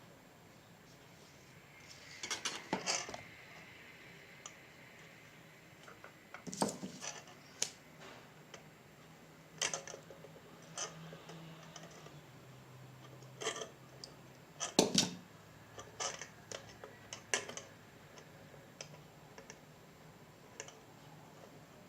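Irregular small clicks and taps of tools and electronic components being handled on a workbench during circuit-board assembly, with a sharper click about two-thirds of the way through.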